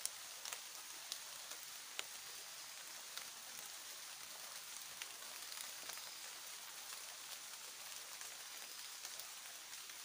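Faint, steady high-pitched hiss of tropical forest ambience, with scattered small clicks and ticks.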